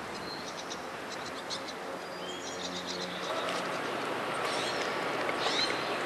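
Small birds chirping in short, high calls over a steady outdoor background hiss, which grows louder about halfway through.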